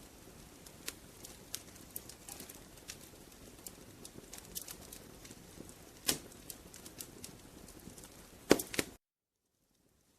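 Wood fire crackling in a fireplace: irregular sharp pops and snaps over a soft hiss, with two louder pops about six and eight and a half seconds in. The sound cuts off suddenly to total silence about nine seconds in.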